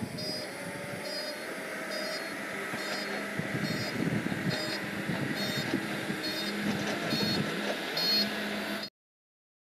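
Escorts TRX15 pick-and-carry crane running as it drives on dirt, its Tata diesel engine running steadily under a warning beeper that sounds about once a second. The sound cuts off suddenly near the end.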